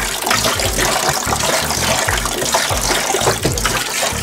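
Water gushing from a hose into a plastic container as fresh water that overflowed into the bilges is pumped out. Background music with a steady beat plays underneath.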